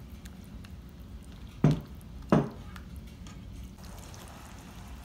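Slotted silicone spatula stirring thick sauce in a nonstick frying pan, with two sharp knocks against the pan a little under two seconds in, just over half a second apart.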